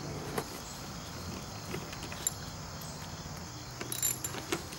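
Hand ratchet wrench with a socket working screws out of a soft aluminium battery case: scattered light metallic clicks, with a quick cluster of clicks about four seconds in.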